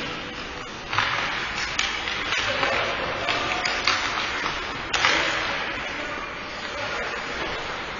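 Ice hockey play: skate blades scraping the ice, with sharp clacks of sticks and puck, loudest about a second in and again about five seconds in.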